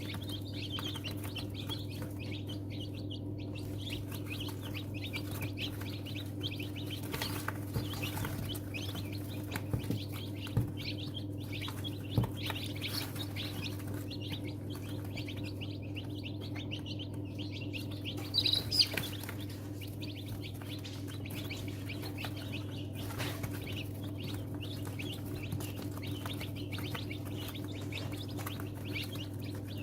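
Newly hatched chicks peeping rapidly and without pause over the steady low hum of an egg incubator, with a few louder peeps about two-thirds of the way through and occasional light knocks.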